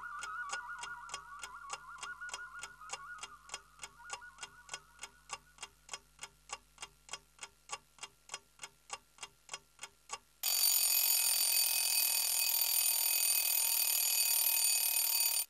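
Clock ticking steadily at about four ticks a second, with a wavering musical tone fading out under it in the first few seconds. About ten seconds in, a loud continuous alarm-bell ring starts suddenly and runs until it cuts off abruptly.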